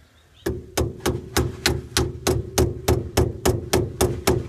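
A hammer tapping steadily on metal, about three blows a second, each with a short metallic ring. It is driving the shifter's press-fit pins home.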